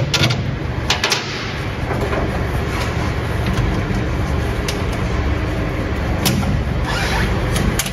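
Steady low mechanical drone, like a running engine or machinery, with a few sharp clicks scattered through it.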